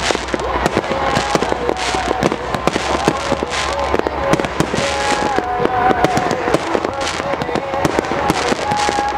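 Aerial display fireworks going off in a rapid, near-continuous barrage of bangs and crackling as shells and rising comets burst overhead.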